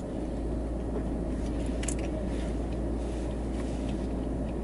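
Car engine idling while parked, a steady low hum heard inside the cabin, with a few faint light clicks.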